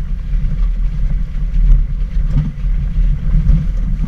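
Suzuki Jimny driving over rough off-road ground, heard from inside the cabin: a heavy, uneven engine and drivetrain rumble with occasional knocks from the jolting body.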